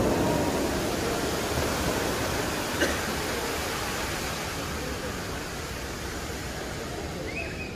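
Dubai Fountain's water jets and spray falling back into the lake, a steady rushing hiss that slowly fades as the jets die down.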